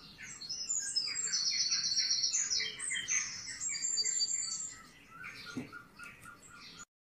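Recorded birdsong played through a television's speakers: busy, rapid chirping and twittering, loudest over the first five seconds, then a softer run of evenly repeated short notes, about five a second, that cuts off abruptly near the end.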